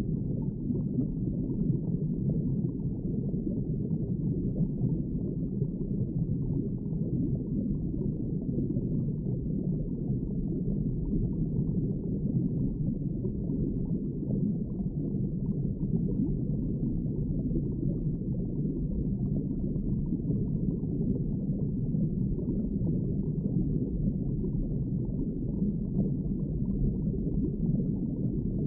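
Steady, muffled underwater ambience: a low, even rumbling wash of water with no distinct events.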